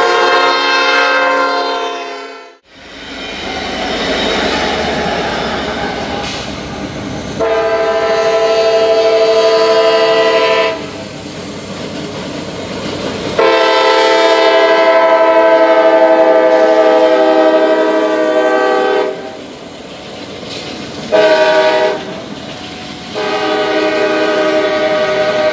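A diesel locomotive's multi-chime air horn: one blast cut off suddenly, a few seconds of rolling freight-train noise, then the grade-crossing signal, long, long, short, long, with the last blast still sounding.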